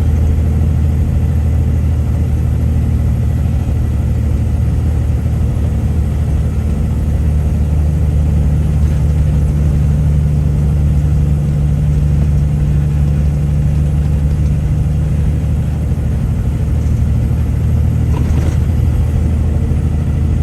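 Truck engine labouring under heavy load up a steep grade, heard from inside the cab: a loud, steady low drone whose pitch shifts partway through.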